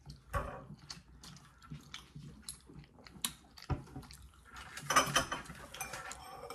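Tableware clinking: a metal utensil tapping and scraping on a plate in a string of small clicks and knocks, with a louder clatter about five seconds in.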